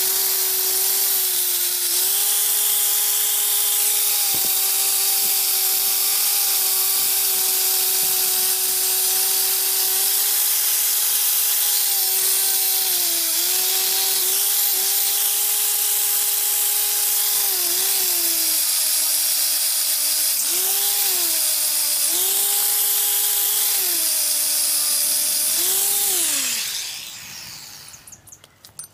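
Electric power tool motor running at high speed with a loud abrasive hiss, its pitch sagging several times as it is pressed into the work, then switched off and winding down near the end.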